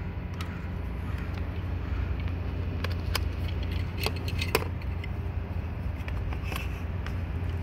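Jump-starter cable clamps and cables being handled and clipped onto a truck's battery terminals: several separate sharp metallic clicks and clinks over a steady low background rumble.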